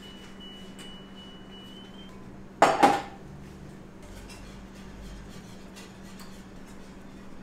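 Kitchenware clattering: one loud, short clatter about two and a half seconds in, with light clinks before and after it. A steady low hum runs underneath, and a thin high tone sounds for the first two seconds.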